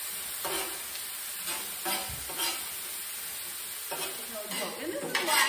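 Cauliflower rice sizzling and steaming on the hot steel flat-top of a Blackstone griddle, just wetted with olive oil and water, while a spatula scrapes and stirs it in short irregular strokes.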